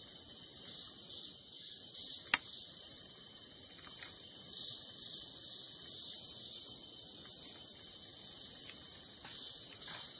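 Forest insects calling: a steady high-pitched whine that sets in at once and holds, with a lower pulsing buzz coming and going in three short spells.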